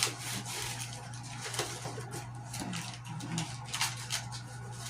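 Irregular rustling and scraping of packaging as an item is pulled out of an opened mail package, with a few small knocks, over a steady low hum.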